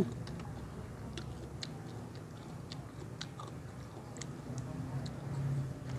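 Close-up chewing of crisp food, with small irregular crunches and mouth clicks.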